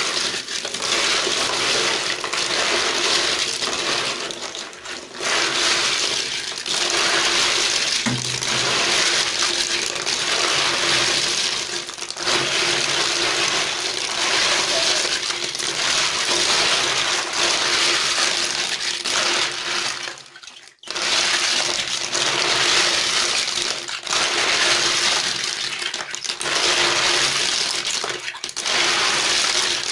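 Many land-snail shells clattering and grinding against each other as hands churn them in a plastic tub, scrubbing them with coarse salt. A dense, continuous rattle, with one brief pause about two-thirds of the way through.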